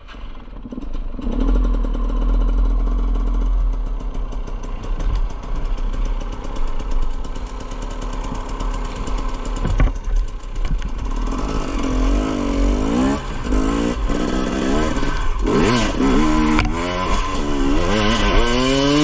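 KTM EXC 250 two-stroke single-cylinder dirt bike engine running, steady at first, then revving up and down again and again as it is ridden hard, about two-thirds of the way in.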